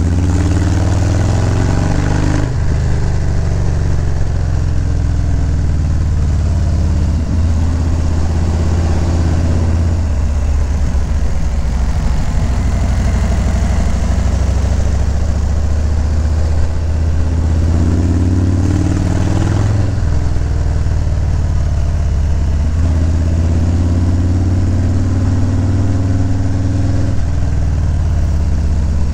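Harley-Davidson Low Rider S V-twin engine running while the motorcycle is ridden, its note rising and falling several times as the revs change.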